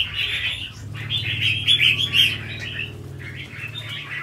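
Red-whiskered bulbul singing in rapid, chirped phrases, counter-singing aggressively against a decoy bird: the scolding fighting song of a combative bird.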